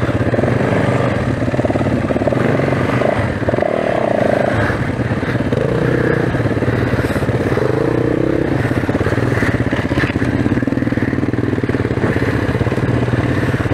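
Enduro dirt bike's single-cylinder four-stroke engine running at low to mid revs through tight woods, its note rising and falling as the throttle is worked.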